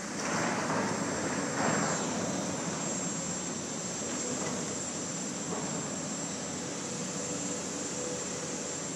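Heavy excavating machinery running, a steady mechanical hum with a thin high whine, swelling louder twice in the first two seconds.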